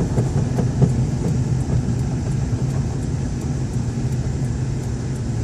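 Steady low rumble of a car driving, engine and road noise heard from inside the cabin, with a few faint ticks about a second in.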